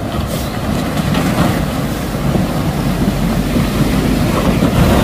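Heavy container truck's engine running as the truck crawls through deep mud and standing water, a steady rumble mixed with churning mud and water noise, swelling slightly near the end.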